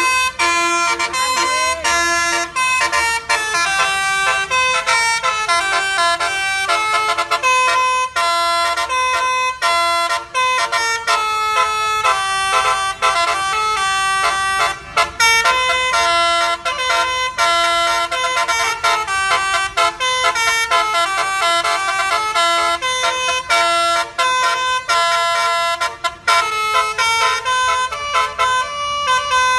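A bus's basuri musical horn playing a fast melody, several horn notes sounding together and changing pitch in quick steps without a break.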